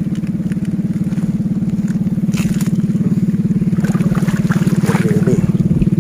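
A small engine running steadily with a fast, even chugging pulse. A few short rustling crackles come about two and a half seconds in and again around four to five seconds in, as water hyacinth is pulled by hand.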